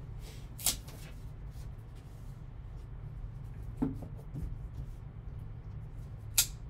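A shrink-wrapped cardboard trading-card box handled with gloved hands: three short crinkles and taps as it is picked up, turned and set down, about a second in, near four seconds and near the end, over a steady low hum.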